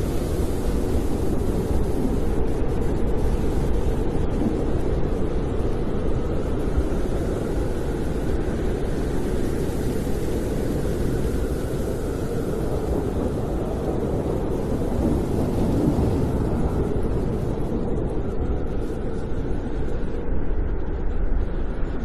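Snowstorm wind blowing steadily with a deep, rumbling base, and faint whistling tones that slowly rise and fall above it.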